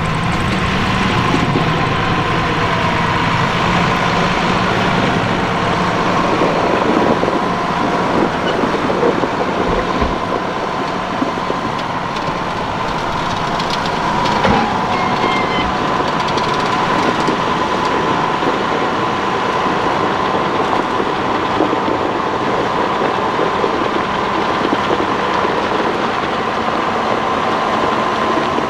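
Farm tractor engine running steadily, with a steady high whine over it and one short thump about halfway through.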